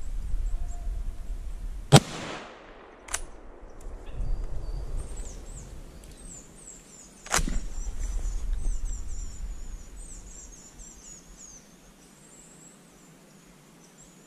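Two shots from a Merkel RX Helix rifle in 7x64, about five seconds apart, the first the loudest with a trailing echo, and a sharper, lighter click about a second after the first.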